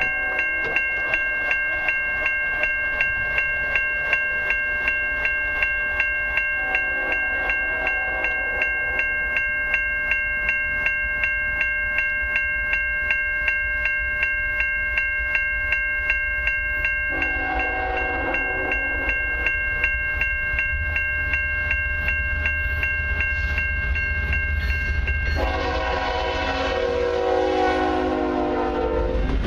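Grade-crossing warning bell ringing steadily about twice a second while an approaching CN freight train's locomotive horn sounds long blasts for the crossing: one fading out at the start, then three more spaced several seconds apart. The heavy rumble of the lead diesel locomotives swells near the end as they reach the crossing.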